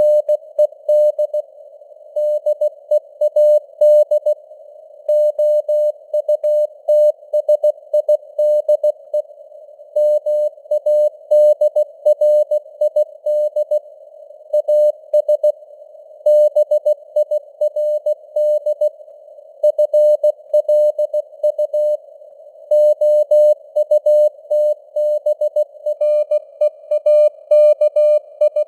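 Morse code (CW) at about 16 words per minute: a single steady tone keyed on and off in dots and dashes, over a narrow band of simulated radio hiss that stays on between the characters.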